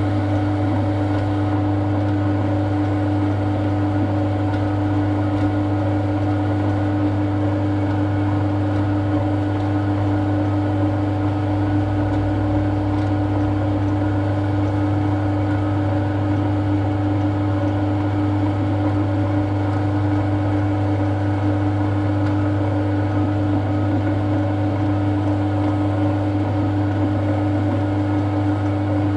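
Electric motor running steadily with a constant hum and no change in speed or load.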